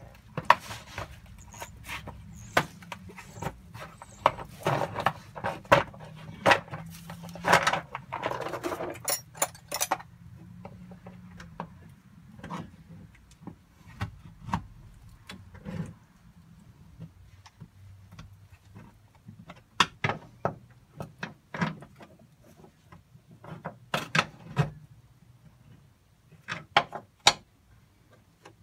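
Rapid metallic clicks, clinks and knocks of hand tools and drum-brake hardware being handled during reassembly, busy for about ten seconds and then scattered.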